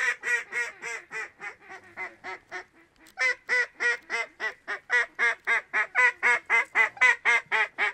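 Duck call blown in a long run of short, evenly spaced mallard quacks, about four a second, a little softer at first and louder from about three seconds in: calling to draw passing ducks in.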